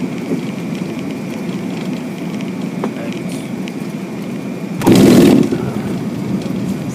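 Fokker 100 cockpit noise on the landing rollout: a steady rumble of wheels on the runway and the Rolls-Royce Tay engines, with a faint steady high tone. About five seconds in, a loud rushing burst lasting under a second.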